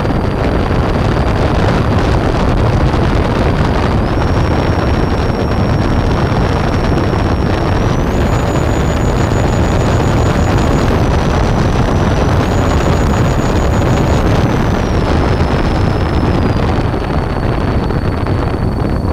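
Loud rush of airflow and motor noise heard from the onboard camera of a 3D-printed SR-71 radio-controlled model aircraft in flight. A thin high motor whine steps up and down in pitch several times as the throttle changes, settling lower near the end.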